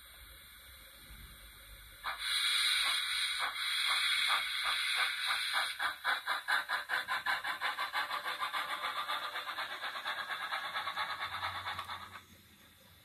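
Sound decoder of a Rapido Trains UK model Hunslet 16in 0-6-0 saddle tank playing steam engine sounds through its small speaker as the locomotive pulls away. A sudden burst of steam hiss about two seconds in is followed by exhaust chuffs that quicken to about four or five a second, then die away near the end.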